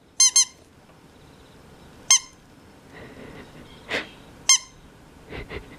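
Squeaky rubber hamburger dog toy squeezed by hand, giving short high squeaks: two quick ones at the start, then single squeaks about two seconds and four and a half seconds in. A short soft knock comes between the last two.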